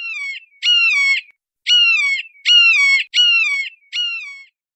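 A bird's harsh, pitched calls, six in a row about half a second each, every call falling in pitch, with short clean gaps between them.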